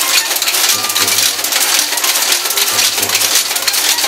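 Monotype hot-metal type-casting machine running: a continuous rapid metallic clatter as it casts type and delivers it into the galley.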